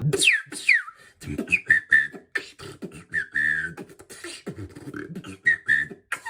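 Beatboxing: a mouth-percussion routine that opens with two falling whistle-like swoops, then runs on with quick clicks and snaps, short high whistled notes and buzzing bass tones.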